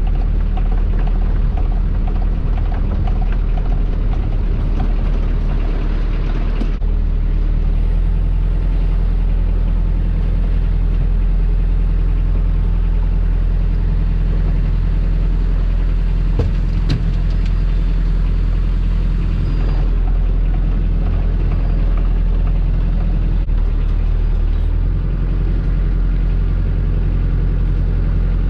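Small fishing boat's engine running steadily with a low hum. One sharp knock comes a little past halfway through.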